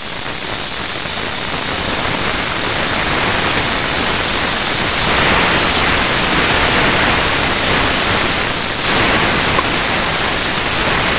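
A lump of margarine sizzling as it melts in a hot wok: a steady frying hiss that builds over the first few seconds.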